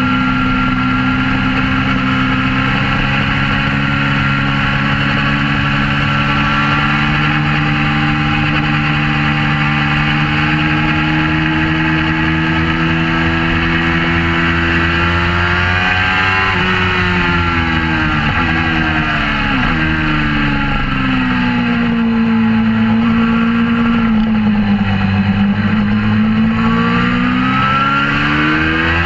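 Suzuki GSX-R600 K4's inline-four sport-bike engine through a Werx aftermarket exhaust, heard from an onboard camera at track speed with wind rush over the microphone. The engine holds a steady high pitch for a long stretch, then falls in several steps as the rider shifts down, runs lower for a few seconds, and climbs again under acceleration, dropping sharply near the end at an upshift.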